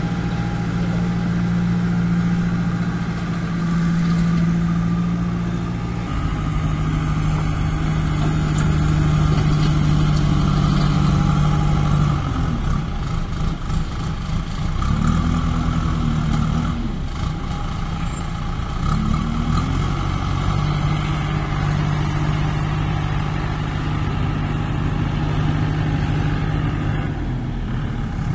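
Kirloskar diesel engine of a JCB 2DX backhoe loader running steadily. Near the middle its speed dips and rises a few times, then settles back to a steady run.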